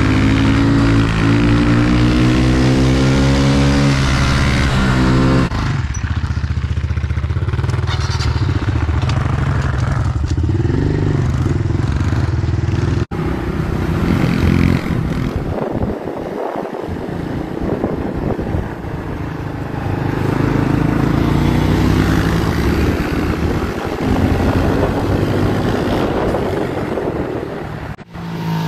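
Honda CRF110 pit bike's small air-cooled four-stroke single-cylinder engine revving up and down while being ridden, its pitch climbing and falling. The sound breaks off abruptly twice, about halfway through and near the end.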